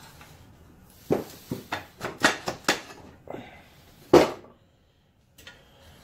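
Metal clanks and knocks of a Delta compound miter saw's turntable being worked loose and lifted off its base: a quick run of clatters, then one loudest knock about four seconds in.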